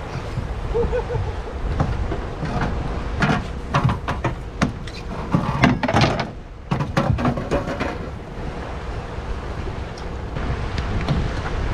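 Wind buffeting the microphone over sea noise on a small boat, with a run of sharp knocks and clatter from a few seconds in to past the middle as a netted fish and the landing net come aboard.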